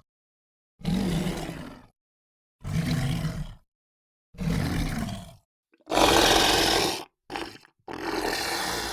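Large-monster roar sound effects: a string of separate, roughly one-second roars with dead silence between them. The roar about six seconds in is the loudest and harshest, followed by a brief one and a longer one.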